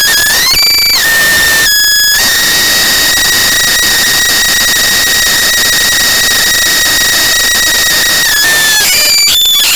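Zerosum Inertia Noise Sorcerer, a Eurorack noise source built around a 5823 vacuum tube, putting out loud harsh hiss with a steady whistling tone riding on it. The tone jumps in pitch in the first second, cuts out briefly about two seconds in, and bends down and breaks up near the end as the knob changes the bias across the tube.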